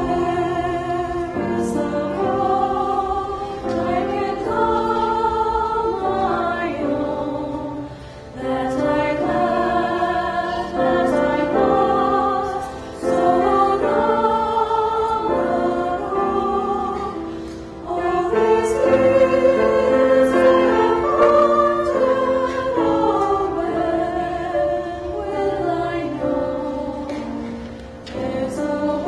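Mixed choir of men's and women's voices singing together, in phrases broken by short pauses for breath.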